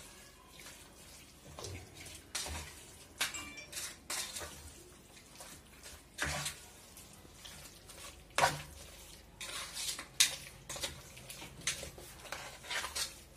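Chicken pieces being mixed by hand with a wet masala marinade inside a metal pressure cooker: irregular squelching and scraping, with sharp knocks against the cooker's metal side, the loudest about 6, 8 and 10 seconds in.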